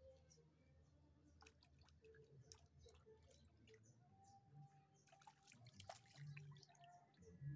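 Faint water dripping and small splashes, coming in scattered patches.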